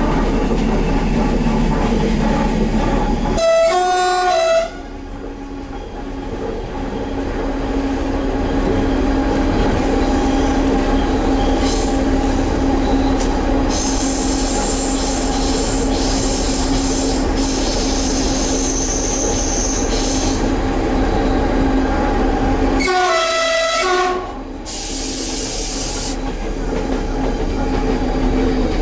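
SNCF X2200-series diesel railcar running along the line, with a steady drone and rail noise. Its horn sounds twice, for just over a second each time: once about three and a half seconds in and again near the end.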